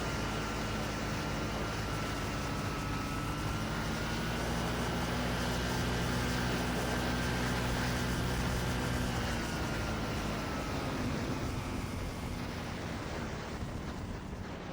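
Quicksilver MXL II ultralight's engine and propeller running steadily with a high whine, then throttled back about ten seconds in, the pitch falling and the level dropping.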